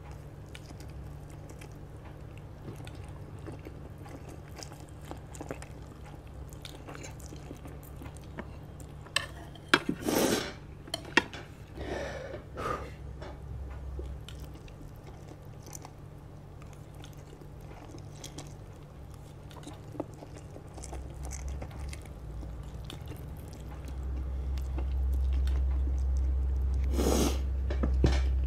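Close-miked chewing and slurping of spicy instant noodles, with a few loud slurps about ten and twelve seconds in and another near the end.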